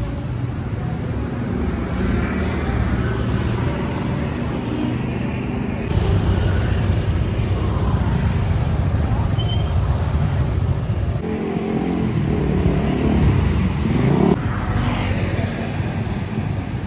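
Street traffic: motorcycles and cars running past with a steady engine rumble. The sound changes abruptly about six seconds in, and one engine's pitch rises as it accelerates about three-quarters of the way through.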